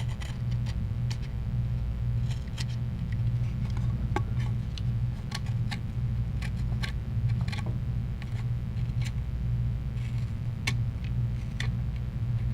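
A steady low background hum, with scattered small clicks and taps of tools on a phone's frame as an adhesive strip is laid on and trimmed.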